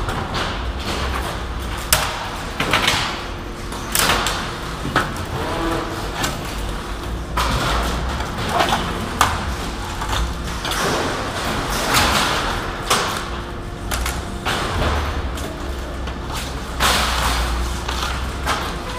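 Hand disassembly of a cut-open LCD screen on a metal workbench: repeated clatter, knocks and scraping of the screen's sheet-metal and plastic parts, over a steady low hum.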